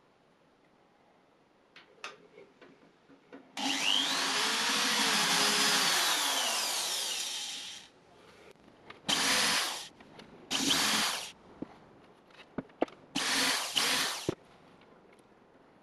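Cordless drill running in bursts: one long run of about four seconds with the motor pitch rising and then falling, then three shorter bursts as the bit bores into a wax carved candle. A few light clicks come before the first run.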